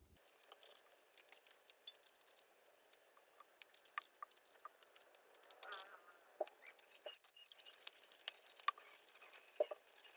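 Faint scattered clicks and light taps of rubber bands being stretched and snapped around a phone to clamp its freshly glued display while the glue sets, with a short squeak near the middle.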